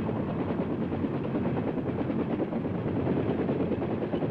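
UH-1 Huey helicopter running with its main rotor turning, a steady rapid thudding of the blades over the turbine, as it lifts into a low hover.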